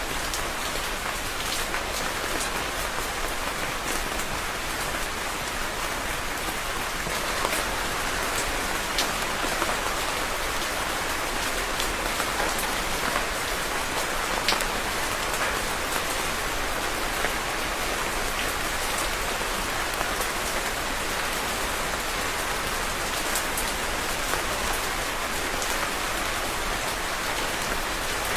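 Steady rain falling, a continuous hiss with scattered individual drops pattering on a surface.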